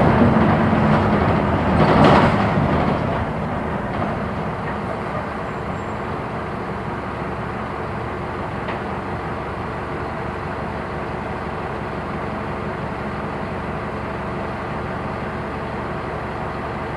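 Diesel engine of a Mercedes-Benz OF-1418 bus with a Neobus Spectrum body. It runs loudly at first, with a brief rush of noise about two seconds in, then drops to a steady, lower run for the rest of the time.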